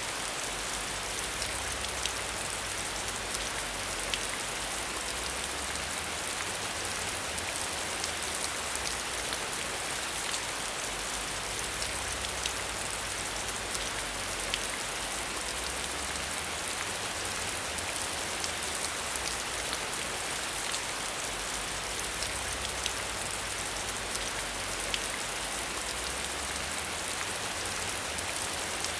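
Steady rain falling: an even hiss with scattered sharp ticks of individual drops, over a faint low rumble that comes and goes.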